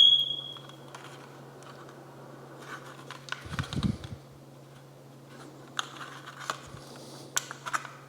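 A smoke detector gives one short, high chirp at the very start, its low-battery warning. Then come plastic clicks, scrapes and a few knocks as the detector's housing is handled and pried at in search of the battery, over a steady low hum.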